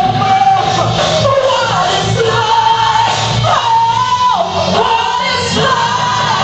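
A live band playing, with a female lead singer holding long notes and sliding between them over drums, heard through the room's echo.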